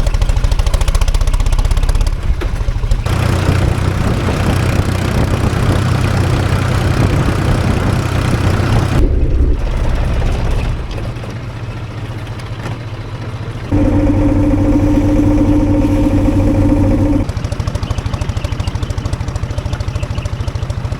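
Tractor engine running as it is driven along, its note changing with load. From about halfway it eases off, then a steady whine rides on it for a few seconds.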